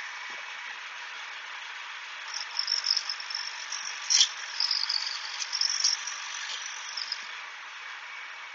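Shopsmith Mark V spinning a grinding wheel with a steady hiss. From about two seconds in, a diamond honing tool is held against the wheel to dress it flat, giving an uneven high-pitched grinding scrape for about five seconds, sharpest a little past the middle. The sound is thinned by AirPods noise reduction, which strips out the low end.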